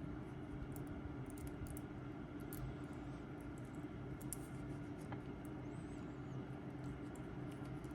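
Faint, scattered small clicks and taps of a watch strap's metal deployment clasp being handled and pried at to open it, over a steady low background hum.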